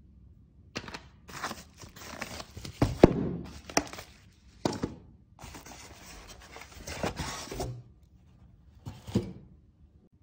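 Plastic wrapping rustling and crackling and polystyrene foam packing rubbing as parts are pulled out of a box, in irregular bursts, with a few sharp knocks, the loudest about three seconds in.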